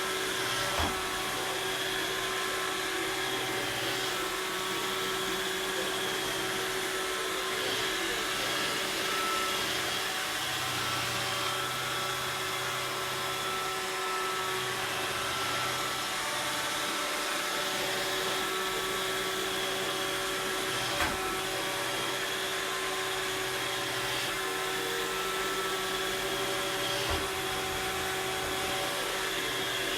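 iRobot Roomba robot vacuum running, a steady motor hum and whine. Three short knocks stand out: one about a second in, and two more near the end.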